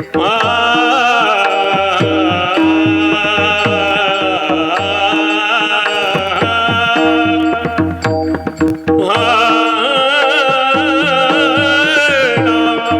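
Marathi kirtan singing: a male voice sings a devotional melody with wavering ornaments over regular drum strokes and a held drone note. The voice breaks off briefly about eight seconds in, then goes on.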